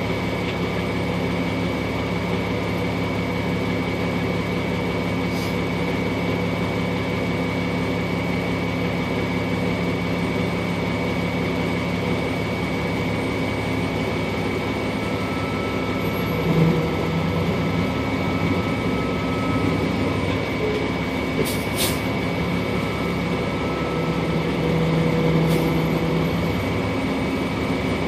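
Truck engine running steadily as the truck drives slowly along a dirt road, picking up a little twice. A steady high whine sits over the engine, and there are a couple of sharp clicks about three-quarters of the way in.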